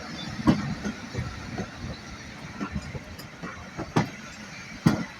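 Steam-hauled passenger train rolling slowly into the platform, with irregular clanks and knocks from the wheels and coaches over the track.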